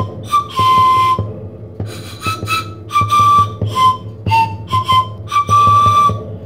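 Music: a tune of short, breathy whistle-like notes that step up and down in pitch, over a steady low hum.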